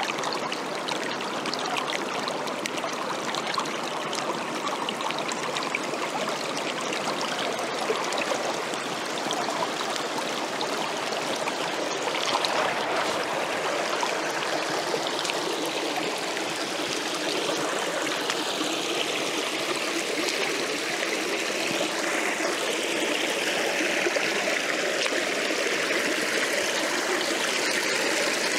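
Small rocky stream flowing over stones and little cascades, a steady rush and splash of water.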